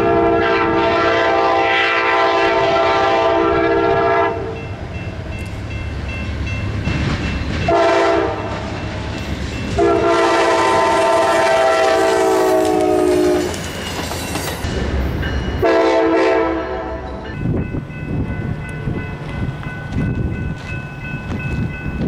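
Nathan K5LA five-chime air horn on Amtrak GE Genesis locomotive #153 sounding a long, a short, a long and a short blast as it approaches and passes. The chord drops in pitch near the end of the third blast as the locomotive goes by. After the last blast the wheels of the passing train clatter over the rails.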